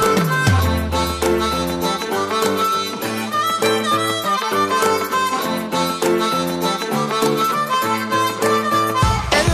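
Background music: an instrumental passage with a sustained melody line over a steady beat, with heavier bass coming in near the end.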